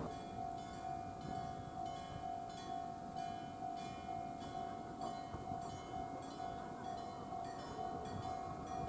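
Japanese railway level-crossing warning alarm: an electric bell and an electronic alarm sounding together, ringing evenly about twice a second.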